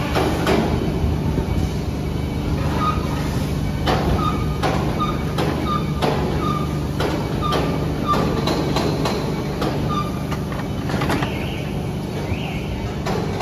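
Steady hum of factory machinery, with scattered metallic knocks and, for several seconds in the middle, short high squeaks about two a second.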